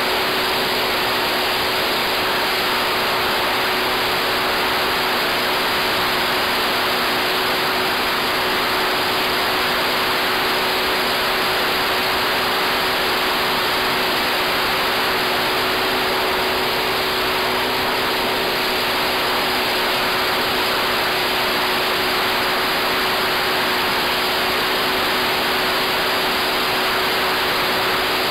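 Radio-controlled model Sopwith Pup in flight, heard from on board: a steady rush of wind noise with the constant drone of its motor and propeller held at one pitch throughout.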